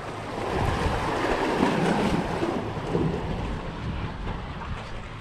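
Wind buffeting the microphone together with surf washing against the jetty rocks: a swelling rush of noise, loudest about two seconds in, that slowly fades.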